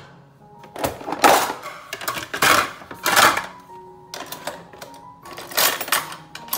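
Dishes and cutlery clattering and clinking as they are handled in a dish rack, in several separate bursts. Plates, bowls and metal spoons and forks knock against each other and against the rack.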